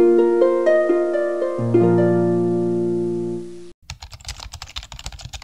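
Short harp-like intro jingle: plucked notes stepping up in quick succession over a low chord, ringing on and cutting off suddenly a little under four seconds in. Then a fast clatter of keyboard-typing clicks.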